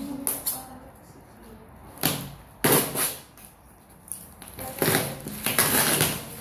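Packing tape being cut and ripped off a styrofoam cool box, heard as several short tearing bursts: one about two seconds in, another around three seconds, and a longer stretch around five to six seconds.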